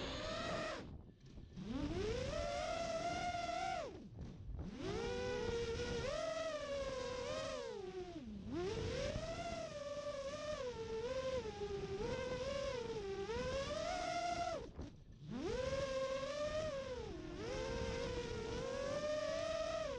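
FPV quadcopter motors spinning DAL Cyclone 5050C props, whining with a pitch that rises and falls with the throttle and drops away sharply four times where the throttle is chopped. The quad is flying on a PID tune that the pilot says is too high for these props.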